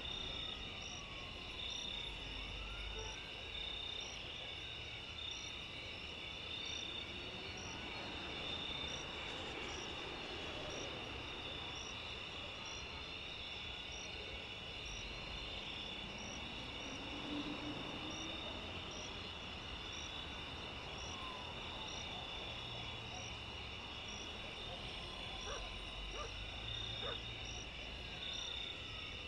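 A dense, steady night chorus of crickets and other insects trilling, with one high, short chirp repeated at an even pace above it. Beneath it runs a low rumble of distant traffic, with a few faint rising and falling tones in the distance.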